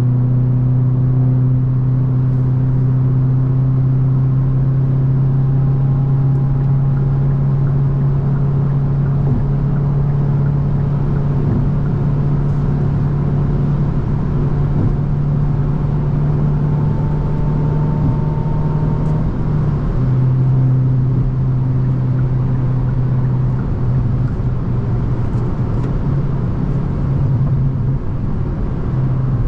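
Hyundai i20 N's turbocharged 1.6-litre four-cylinder engine pulling steadily at highway speed, its note creeping slightly higher, then dropping a little in pitch about two-thirds of the way in and holding steady again, over constant tyre and road noise.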